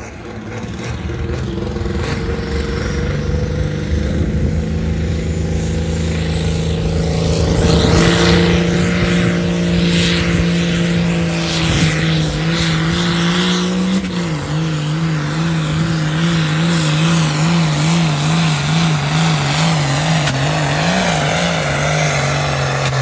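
Ford farm tractor's diesel engine running flat out under load as it pulls a weight-transfer sled, getting louder as it comes closer. About halfway through its pitch drops a step and then wavers rapidly up and down as the engine labours against the sled.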